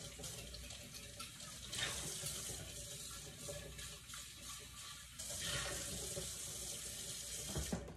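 Water running from a kitchen tap as a large glass jar is rinsed out in the sink, the flow swelling in stretches and shutting off just before the end.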